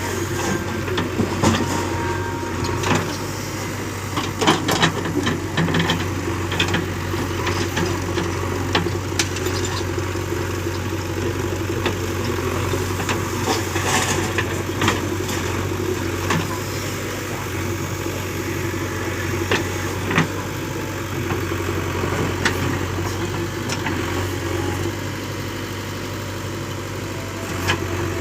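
Heavy diesel engine running steadily with a low drone, with short sharp knocks and clatter here and there.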